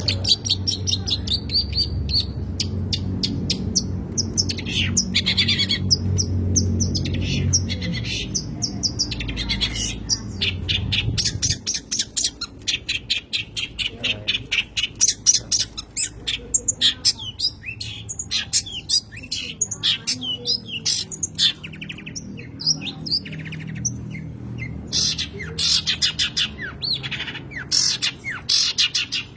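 Long-tailed shrike (cendet) singing a fast, varied run of chattering, trilling and squawking notes with no pauses to speak of. A low background hum runs under the song and stops about twelve seconds in.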